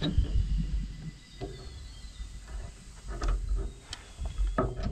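Scattered metallic clicks and knocks from hand tools working on the rusted Fiat 615 tractor engine, with faint insects or birds calling in the bush.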